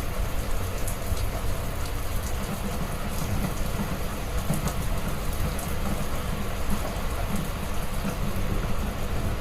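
Heavy rain falling steadily, with a dense, constant hiss and a deep low rumble under it.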